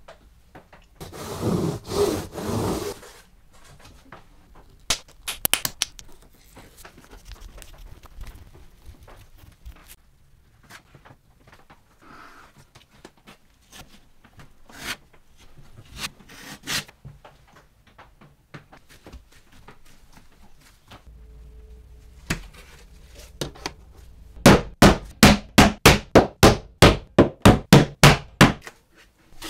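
Quiet scraping of a putty knife spreading adhesive on hardboard, with scattered handling clicks, then near the end a steady run of about seventeen hammer taps, about four a second, driving small nails into the edge of a hardboard panel.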